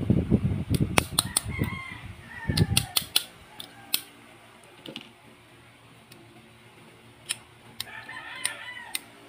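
Sharp metallic clicks of 1911 pistol parts being handled and fitted by hand with pliers, with heavy handling thumps and rumble in the first few seconds. A rooster crows in the background about a second and a half in and again near the end.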